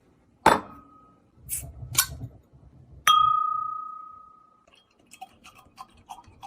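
Kitchen tableware being handled: a few knocks, then one hard strike about three seconds in that rings out with a clear tone for about a second and a half, and a run of small light clinks near the end.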